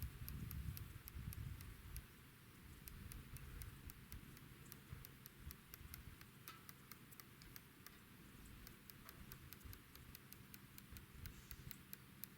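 Feyachi RFS-21 rifle scope's adjustment turret being dialed: a long, faint run of quarter-MOA clicks, about four a second.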